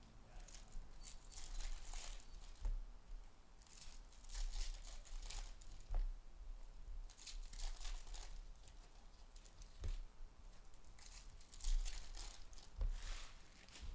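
Packaging of Topps baseball card boxes and packs being torn open and crinkled in several bursts, with a few short light knocks.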